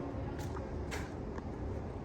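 Outdoor background noise: a steady low rumble with faint distant voices and a few short clicks about half a second apart.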